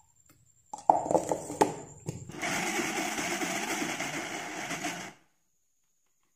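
A few clattering knocks as the lid and steel jar are set in place, then an Indian mixer grinder runs for about three seconds, blending a thick chickpea, cocoa and oil paste, and cuts off.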